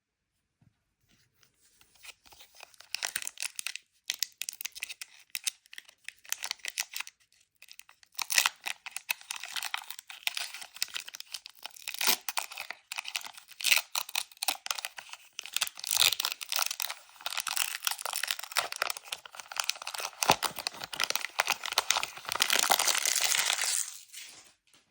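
Plastic wrapping on Pokémon card packaging being torn open and crinkled, in crackly stretches with short pauses between them.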